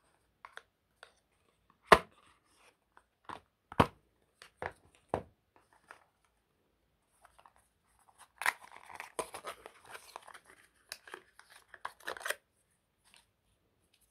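Packaging handling: a handful of sharp taps and knocks as a plastic earbud charging case is lifted out of its cardboard box tray and set down, the loudest about two seconds in. About eight seconds in come some four seconds of crinkling and tearing of packaging as the charging cable is taken out.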